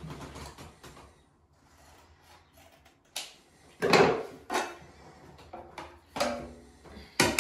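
Handling noises as hand tools are put down and picked up: a quiet stretch, then several short knocks and rustles, the loudest about four seconds in.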